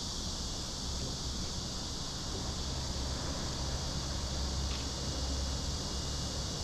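Steady outdoor background noise: a low rumble of wind on the microphone under an even high hiss.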